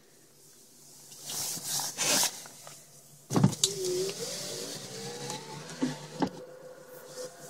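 Shuffling and handling noise inside a car, a sharp knock about three seconds in, then a thin electric-motor whine that climbs slowly in pitch for a few seconds.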